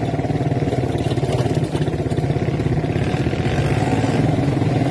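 ATV engine running steadily under way on a dirt trail, heard from the rider's seat, with a fast even firing pulse and no change in pace.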